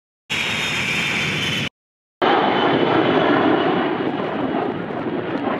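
Jet aircraft engine noise in two edited clips. First, a short steady jet noise with a high whine that cuts off after about a second and a half. Then, after a brief silence, a louder, deeper steady rush from a Boeing E-3 Sentry's four jet engines in flight.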